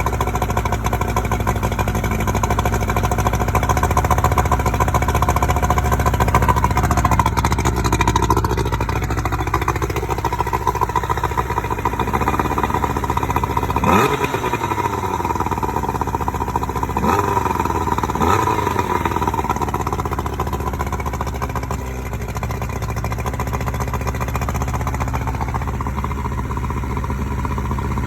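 Freshly rebuilt 1987 Johnson 70 hp two-stroke outboard motor running steadily, with its cylinders bored .030 in. over, on its first run after the rebuild. Its pitch rises and falls a few times in the middle as it is revved briefly, then settles back to a steady run.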